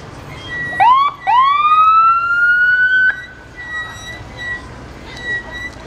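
Vehicle siren giving two rising whoops. A short one comes about a second in, then a longer one that sweeps up, holds its pitch and cuts off suddenly near the halfway point.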